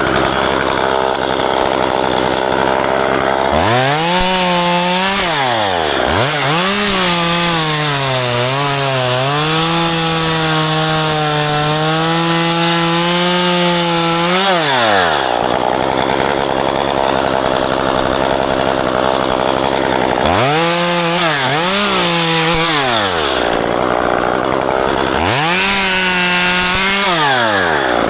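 Gasoline chainsaw repeatedly revved to full throttle and let back down to idle. Its pitch sags for a moment during the longest run, which lasts about eight seconds, as if pulled down by a cut into ficus branches.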